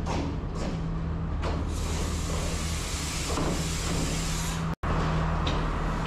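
Diesel train arriving at a station, its engine running with a steady low hum. A broad hissing rush builds about two seconds in and fades after about three seconds. The sound drops out briefly near the end.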